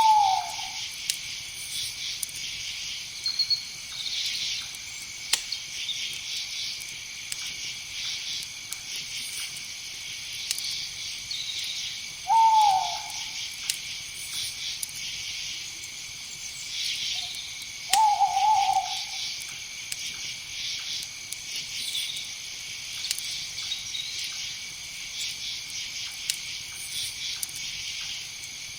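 An owl calling three times, each a short call falling in pitch, over a steady chorus of crickets and other insects.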